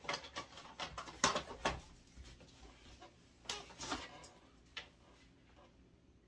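Rustling and light knocks from items being handled in a cardboard moving box: a boxed set of taper candles set down and a paper envelope drawn out. A quick run of rustles and taps comes in the first two seconds and another around three and a half seconds in.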